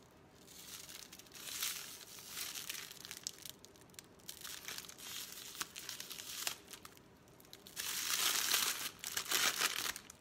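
Clear plastic wrap crinkling as it is pulled off a bath bomb by hand, coming and going in short spells, loudest and longest near the end.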